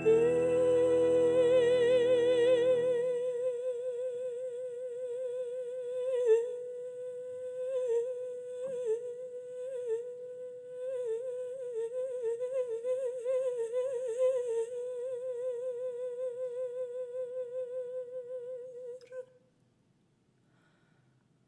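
A grand piano chord dies away over the first few seconds, leaving a soprano's voice alone on one long wordless line, held near one pitch with vibrato and small ornamental turns. The voice stops about two seconds before the end.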